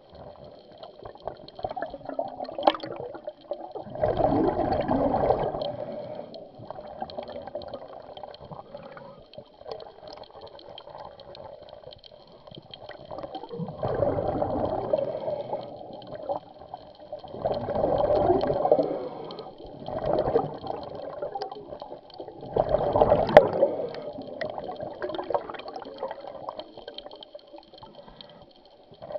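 Scuba diver's exhaled bubbles rushing and gurgling out of the regulator underwater. There is a burst every few seconds with each breath out, about six in all, and a softer bubbling between them.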